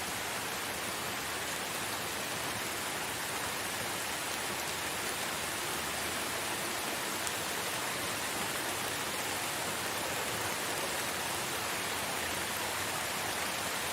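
Steady rainfall, an even hiss of rain with faint drop patter.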